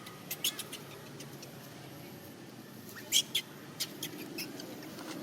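Baby monkey squeaking: short, high-pitched squeaks in small clusters, the loudest pair about three seconds in.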